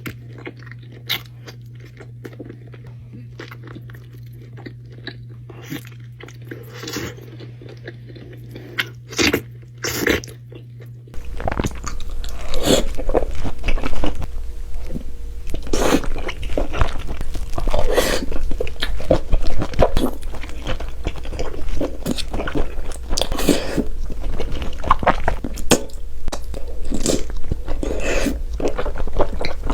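Close-miked mukbang eating sounds of cheesy tteokbokki: chewing, biting and wet smacking. For about the first eleven seconds there are only scattered bites and clicks over a low hum; then, after a sudden cut, the chewing becomes loud and continuous.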